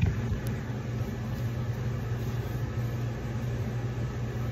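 Steady low mechanical hum, like a household fan or appliance running, with a few light handling clicks at the start.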